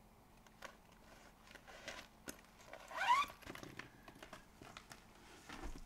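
Faint rustling and small clicks of a large piece of cross-stitch fabric and supplies being handled and put away, with a brief rising squeak about three seconds in.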